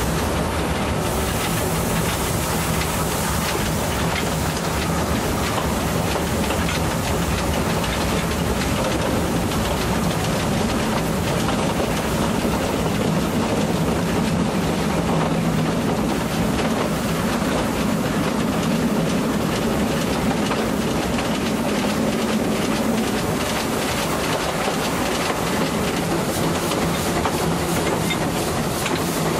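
Narrow-gauge train hauled by steam tank locomotive ÖBB 298.52 running steadily, heard from aboard: a continuous rumble of wheels on rail with steam hiss. Faint regular ticks near the end.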